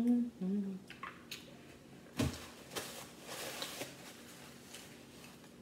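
A woman hums a wordless, rising "mmm" at the start. About two seconds in comes a single sharp knock with a low thump, followed by a second or so of breathy, hissing noise into a paper napkin held to her nose and mouth.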